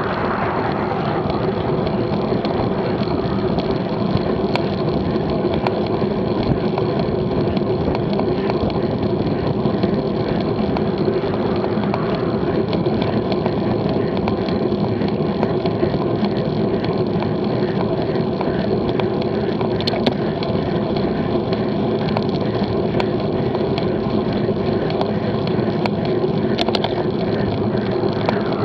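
Steady rushing wind and tyre hum picked up by a bike-mounted action camera while cycling at about 18 mph. An oncoming car swells past near the end.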